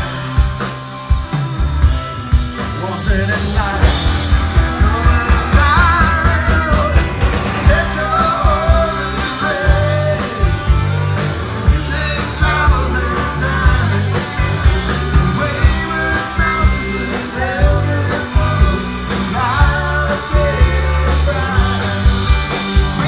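Psychedelic rock band playing live and loud: electric guitars over electric bass and a drum kit, with a bending melodic lead line above the beat.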